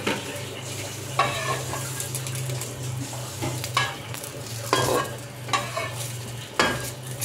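A metal spatula scraping and turning battered pieces in a non-stick wok that is frying without oil: about seven short scrapes over a light sizzle, with a steady low hum underneath.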